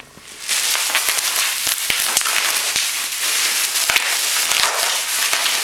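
Plastic packaging crinkling and rustling as it is unwrapped from a paintball marker, a dense crackle of small clicks that starts about half a second in.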